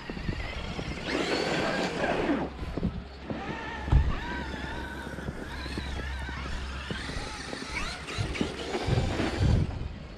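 Traxxas X-Maxx 8S electric RC monster truck driving through snow: its brushless motor and drivetrain whine, rising and falling in pitch as it speeds up and slows. Bursts of rushing noise come about a second in and near the end, and a dull thump comes about four seconds in.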